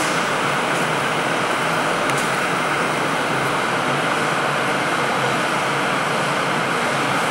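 Robotic radial braiding machine running as it braids carbon-fibre rovings onto a tube mandrel: a steady, even rushing machine noise with no distinct beat.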